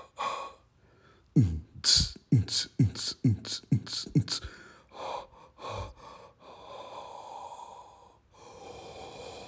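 A percussive beat of deep, falling-pitch kick thumps and sharp snare-like hits, about two or three a second, stopping about six seconds in. It is followed by two stretches of steady breathy hiss.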